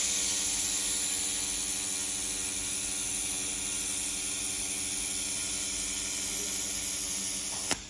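A handheld 1000 W fiber laser welder with wire feed welding 3 mm stainless steel plate: a steady loud hiss with an even hum under it, cutting off with a click near the end as the weld stops.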